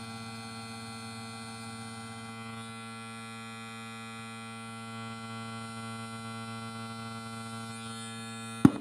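Amplifier fed by a 12 V Bluetooth module putting a steady hum through its loudspeaker: the noise such a module brings when fitted without a filter on its supply. A sharp pop near the end, after which the hum stops.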